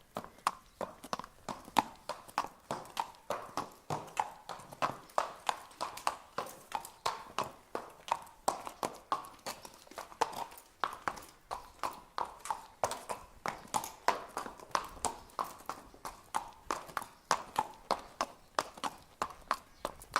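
Horse walking at a steady pace, its hooves clip-clopping on hard ground in an even run of sharp strikes, several a second.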